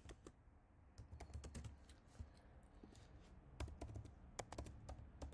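Faint, irregular typing on a computer keyboard: a run of quick key clicks.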